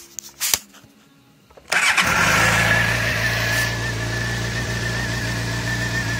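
A few light clicks, then the 2006 Suzuki GSX-R 750's inline-four, on its stock exhaust, starts abruptly about a second and a half in and settles into a steady idle.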